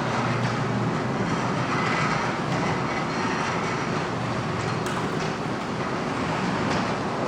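LiftMaster commercial garage door opener running, the sectional door travelling steadily along its tracks after the safety sensors tripped it.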